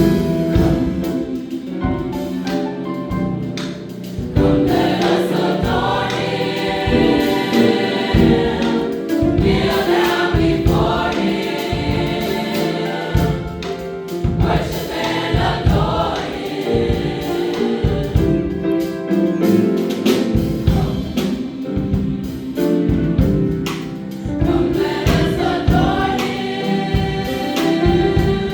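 A choir singing with instrumental accompaniment, over a steady low beat.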